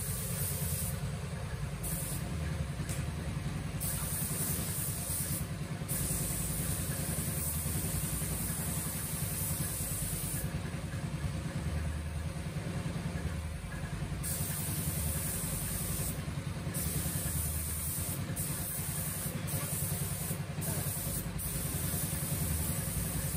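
Gravity-feed paint spray gun hissing in repeated bursts of one to a few seconds as its trigger is pulled and released, spraying clear coat onto a motorcycle fender. A steady low machine hum runs underneath.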